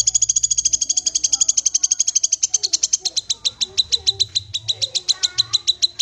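Cucak kinoi call: a loud, rapid trill of sharp high notes at about ten a second, slowing a little past halfway. It is the call used to set a young kinoi calling in reply.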